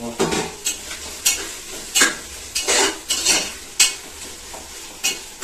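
A spoon scraping and knocking against an aluminium cooking pot while masala is stirred as it fries, in about eight uneven strokes, over a steady faint sizzle.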